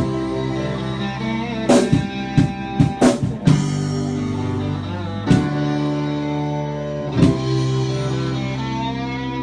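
Live band playing an instrumental passage: electric guitars holding sustained notes over drums, with a quick run of drum strikes about two to three seconds in and single hits later.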